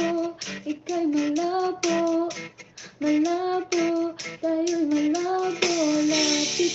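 A woman singing a melody into a microphone in short phrases, with brief breaks between them.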